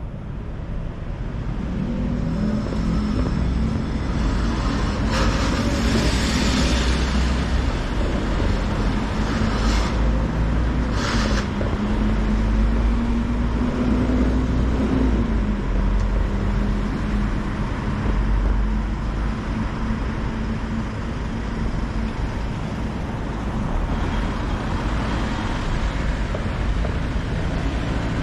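City street traffic: vehicle engines running with a steady low hum that rises and falls a little, and a few short hisses about five, ten and eleven seconds in.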